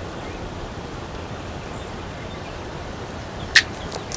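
Steady rush of a mountain creek and waterfall cascading over rock, with a single sharp click about three and a half seconds in.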